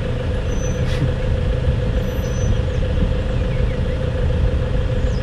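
Safari jeep's engine idling with a steady low hum.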